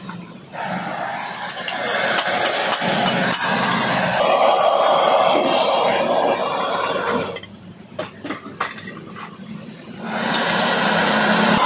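Gas torch flame hissing steadily as it heats a radiator's tank seam. The hiss drops away for about two and a half seconds in the second half, leaving a few light clicks, then comes back near the end.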